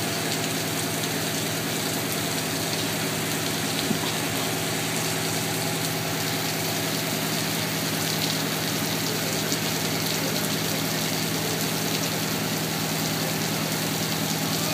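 Heavy rain falling steadily, with the steady hum of an idling engine underneath.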